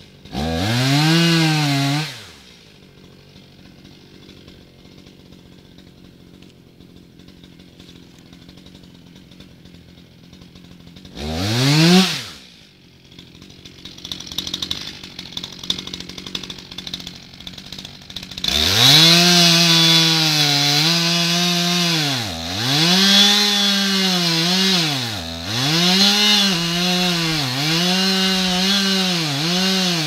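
Two-stroke chainsaw: a short rev, several seconds of idling, another quick rev, then held at high revs while cutting at the base of the tree for the last third, its pitch sagging and recovering a few times as the chain loads up in the wood.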